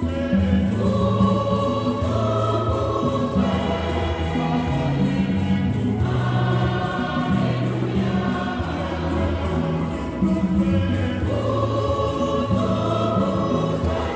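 A choir singing a hymn, with a steady beat underneath.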